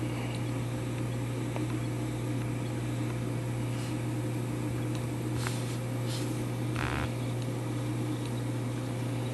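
Steady low electrical hum, with a few faint small clicks and a brief rustle about seven seconds in.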